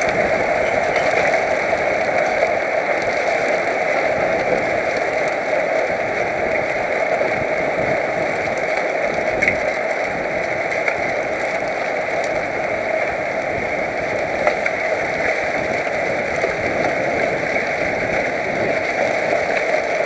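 Steady rushing noise of wind and tyres, heard through a helmet-mounted camera on a road bike while riding.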